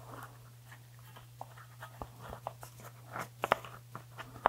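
Fingers pressing and working a freshly glued part around a subwoofer's cone: scattered light clicks, taps and rustles, a few sharper clicks about three and a half seconds in and at the end, over a faint steady low hum.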